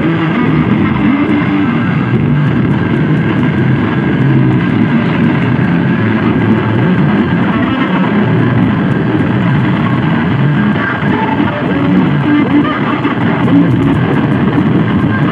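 Harsh noise music played live on electronics: a loud, unbroken wall of distorted, grinding noise, heaviest in the low-mid range.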